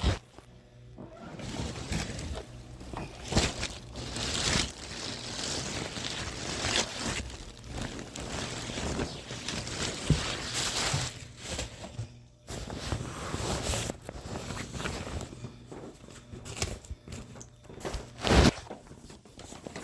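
Rustling and crinkling of packaging and a down coat being pulled out of its box, going on in uneven bursts, with a louder sharp knock near the end.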